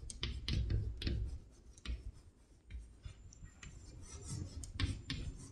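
Pen writing on paper: a string of short, irregular scratches and clicks.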